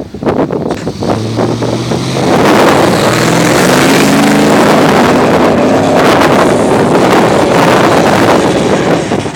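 Toyota Land Cruiser 70-series engine revving up under load. Its note rises from about a second in, then runs loud and steady with heavy wind noise on the microphone, typical of powering up a sand dune.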